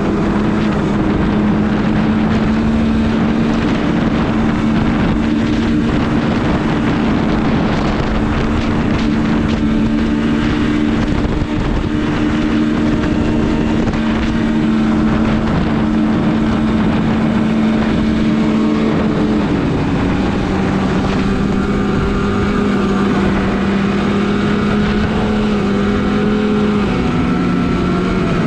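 Snowmobile engine running at a steady speed, holding an even pitch that dips slightly about twenty seconds in and again near the end, with wind noise on the microphone.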